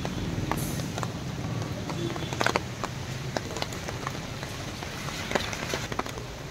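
Car moving in heavy rain, heard from inside: a steady low engine and road hum with scattered sharp taps of rain on the car body.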